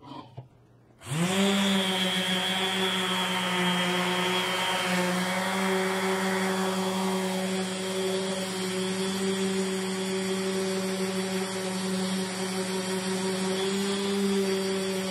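Makita random orbit sander switching on about a second in, its motor rising quickly to speed, then running with a steady hum as its pad sands a flat red oak board.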